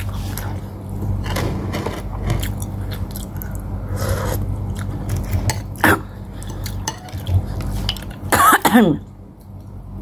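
Metal spoon clinking and scraping against a ceramic bowl while eating, over a steady low hum. Near the end comes a short, loud throat-clearing sound, falling in pitch.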